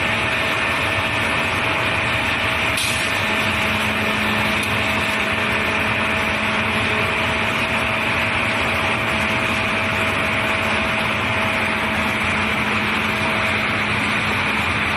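Glass-processing CNC machinery running steadily: a continuous hiss with a thin steady hum. A lower hum joins a little after three seconds in, and there is one brief click just before it.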